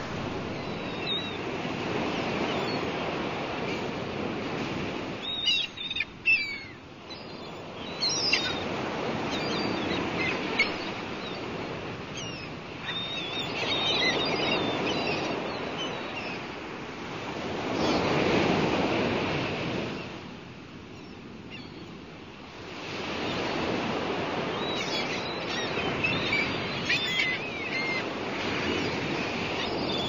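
Rough, storm-driven surf of the Sea of Azov breaking and washing up a sandy beach, the rush of water swelling and fading with each wave, with a quieter lull about two-thirds through. Birds chirp over the surf in short bursts.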